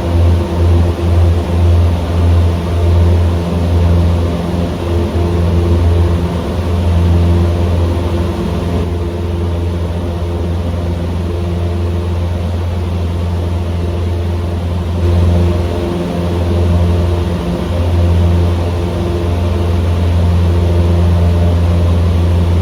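Cessna 150M Aerobat's Continental O-200 four-cylinder engine and propeller droning steadily in flight, with the sound beating up and down over the first few seconds.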